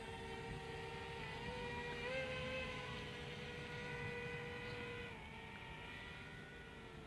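DJI Spark quadcopter's propellers whining steadily, the pitch stepping up about two seconds in and dropping back about five seconds in.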